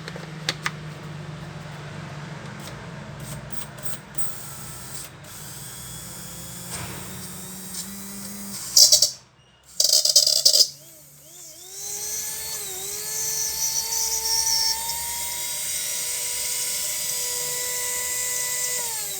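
Electric spice grinder's motor spinning up about halfway through with a rising whine, running at a steady high whine, then winding down at the end. It runs freely after the thread tangled inside it was removed and its bearing oiled. Before it starts, a low hum and two brief loud clatters.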